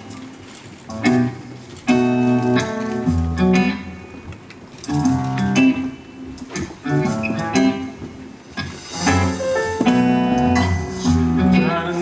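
Instrumental music led by guitar, playing the introduction to a stage-musical number in phrases with short breaks between them.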